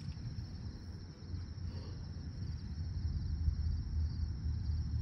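Insects chirring steadily in a high, even band, over a low rumble of wind on the microphone that grows a little louder in the second half.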